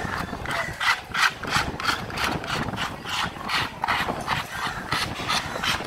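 Large knife blade scraped again and again across a wooden chopping block, about three strokes a second, with a short pause near the end.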